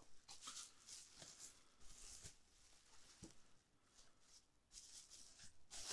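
Faint, irregular crinkling and rustling of bubble wrap being handled among polystyrene packing peanuts.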